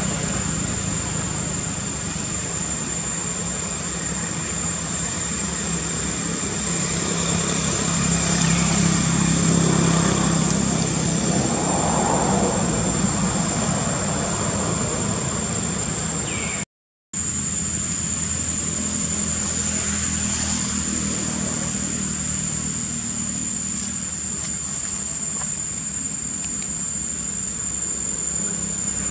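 A steady low hum with a constant high-pitched whine above it, swelling a little around ten seconds in. The sound cuts out for a moment a little past halfway.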